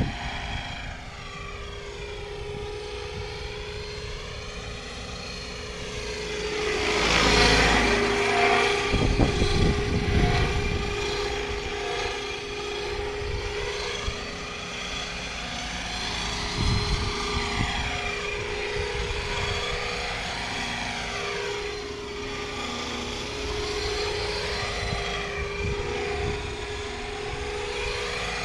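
Radio-controlled scale MD 520 helicopter in flight: its rotor noise is mixed with a steady turbine-like whine played by an onboard Aerosound sound module. It grows louder, with some rumble, as it passes close about seven to eleven seconds in, then carries on more evenly as it circles.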